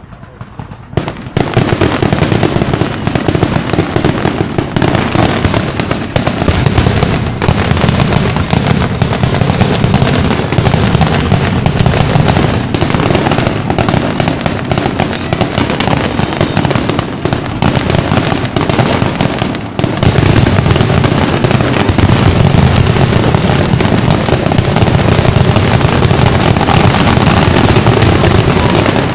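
A dense, continuous barrage of fireworks: rapid overlapping bangs and crackling bursts that start abruptly about a second in and keep going without a pause.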